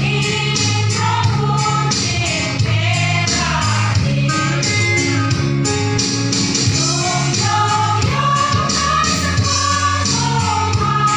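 Women's choir singing a gospel hymn over a steady percussion beat of about three strokes a second.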